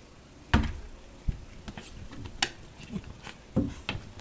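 Two cats play-fighting on carpet against a door: a series of sharp thumps and knocks as bodies and paws hit the floor and door, the loudest about half a second in.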